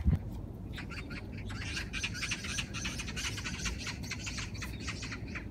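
A flock of birds chirping and squawking busily together, many quick short calls overlapping. A brief low thump right at the start is the loudest sound.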